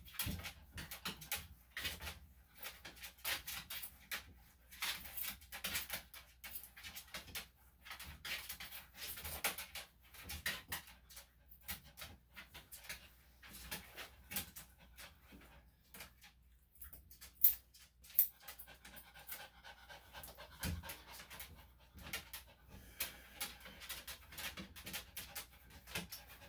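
Senior Maltese–Shih Tzu cross dog panting in quick, irregular breaths, with small clicks mixed in and two louder sharp clicks a little past the middle.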